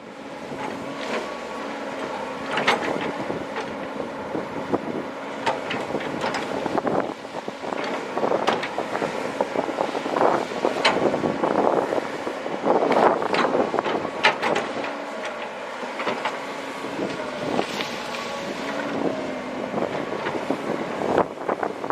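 Komatsu PC130 hydraulic excavator's diesel engine running steadily, with many irregular clanks and scrapes as the bucket works rock and gravel in the riverbed.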